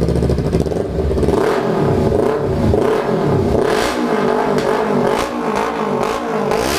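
Kawasaki Ninja 300 parallel-twin engine running through its bare header pipe with the muffler removed ("só o cano"). The exhaust is very loud, with its pitch shifting up and down.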